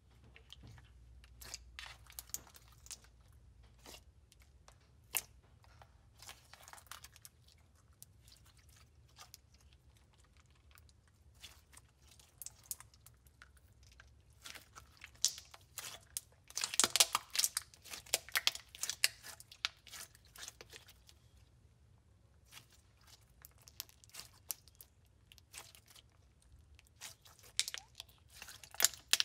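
Clear slime packed with polymer clay sprinkles being squeezed, folded and stretched by hand, giving irregular crackling, popping and crunching. The crackles come sparsely at first, grow busiest about halfway through, and pick up again near the end.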